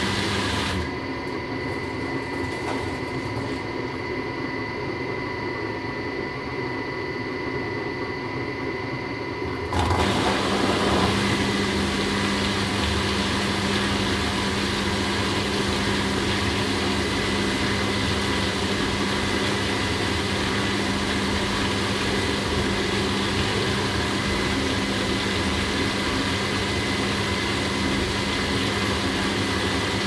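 Washing machine running with a steady motor hum. About ten seconds in, the sound steps up to a louder, fuller running sound with a hiss, and stays that way.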